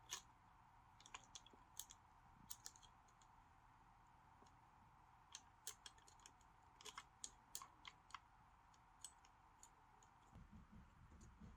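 Faint light clicks and taps of small hard parts being handled, coming in scattered clusters with quiet between.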